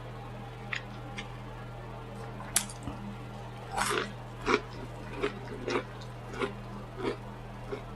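A person chewing food close to the microphone with wet smacking mouth sounds: a few light clicks, a sharper click about two and a half seconds in, then a chew roughly every two-thirds of a second. A steady low hum sits underneath.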